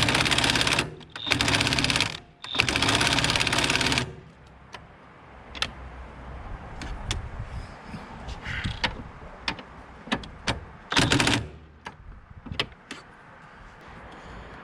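Impact wrench driving bolts in three short bursts of rapid hammering rattle over the first four seconds, then once more briefly about eleven seconds in. Light metallic clicks and clinks of tools come in between.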